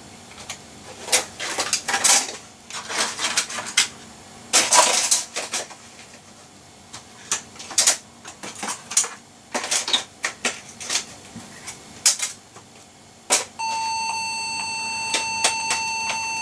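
Computer keyboard keys clacking irregularly. About thirteen seconds in, the Compaq Deskpro 6400's internal speaker starts a steady, high-pitched beep that doesn't stop, an error signal from the PC as it fails to boot.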